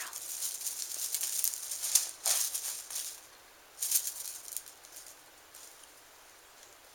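Feather wand cat toy with shiny streamers rustling and rattling as it is whipped about and batted by a kitten. The sound comes in busy bursts for about three seconds and once more briefly near four seconds.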